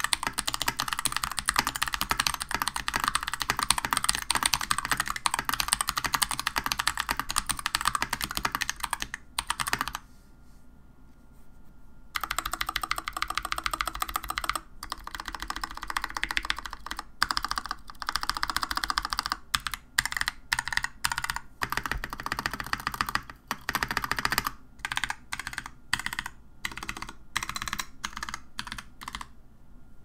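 Fast typing on a mechanical keyboard with unlubed Akko CS Ocean Blue tactile switches and Tai-Hao keycaps: dense, loud key clacks, a pause of a couple of seconds about nine seconds in, then more typing in shorter bursts that stops near the end. The typist hears pronounced spring ping and an almost rattly sound from the unlubed switches.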